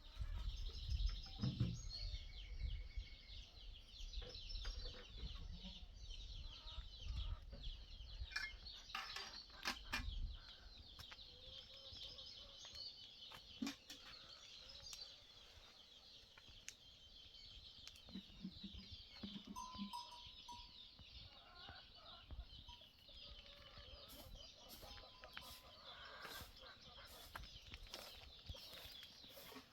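Faint farmyard ambience: birds chirping continuously with chickens clucking now and then. There are a few sharp knocks and a low rumble in the first ten seconds or so.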